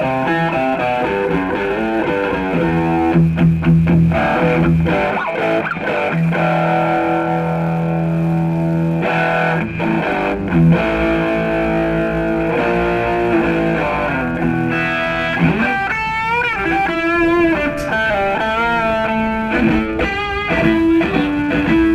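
Distorted electric guitar playing held notes through a stage sound system during a rock band's sound check. From about two-thirds of the way in it plays bent, wavering lead notes with heavy vibrato.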